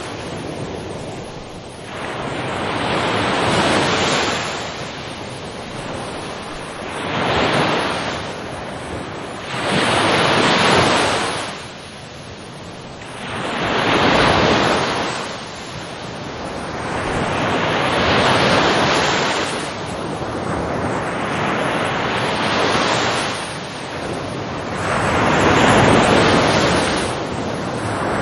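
Ocean waves breaking on a shore, each wave rising to a rushing swell and washing back, about every three to four seconds.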